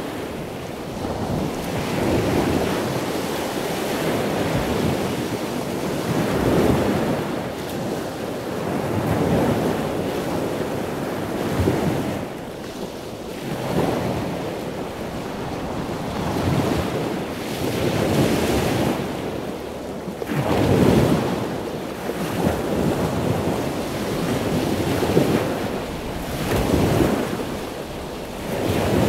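Wind buffeting the microphone over the noise of big ocean surf breaking, swelling and easing in gusts every couple of seconds.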